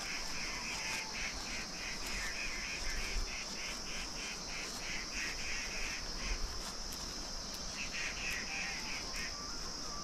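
Insects droning steadily at a high pitch, overlaid by a rapid run of short chirps, about four a second, that breaks off about seven seconds in, resumes, and stops shortly after nine seconds.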